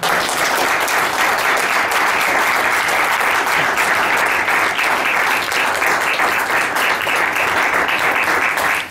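Audience applauding, starting suddenly and holding steady, then dying away near the end.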